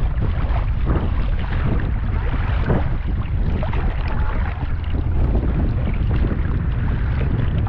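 Wind buffeting the microphone: a steady, fluttering rumble with a rushing hiss above it.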